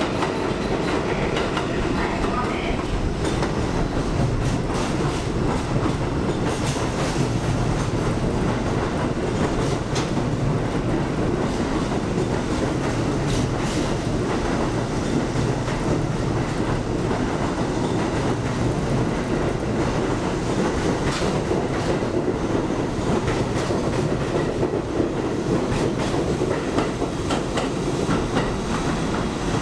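Budd R32 subway train passing through the station: a steady rumble of wheels on rail, with runs of sharp clicks as the wheels cross rail joints.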